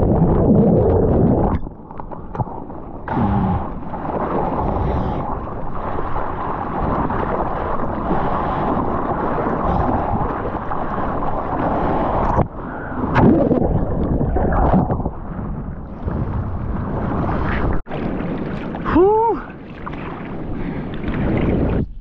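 Water rushing and splashing around a surfer's waterproof action camera as it moves through a breaking wave, with wind buffeting the microphone. About three seconds before the end there is a short rising-and-falling shout.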